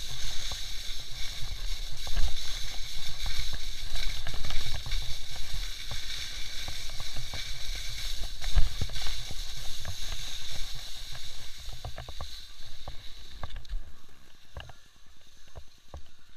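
Skis hissing over packed snow on a downhill run, with wind rumbling on the camera microphone. Both fade over the last few seconds as the skier slows near the bottom of the slope, and a few light clicks come through.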